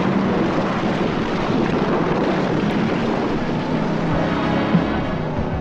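Station wagon's engine running at speed with a steady rushing noise of tyres and wind, and a low, even engine hum.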